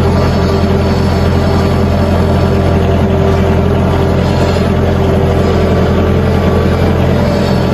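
Sawmill's engine running at a steady, unchanging speed, a constant loud drone.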